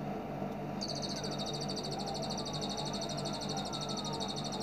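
Small songbird giving one long, very rapid high trill, machine-gun fast, starting about a second in, over a steady low background hum.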